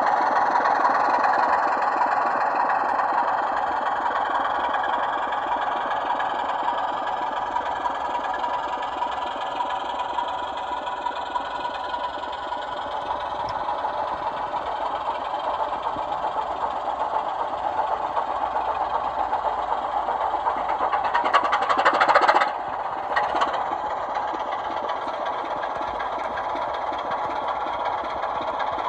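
Sound decoders in model British Rail Class 24 diesel locomotives playing the Sulzer diesel engine sound steadily through small onboard speakers, with little bass. About three-quarters of the way through, the sound swells louder and then cuts off suddenly, with a brief short burst just after.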